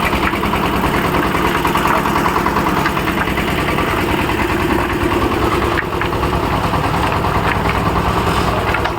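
A construction machine's engine running steadily at a constant speed.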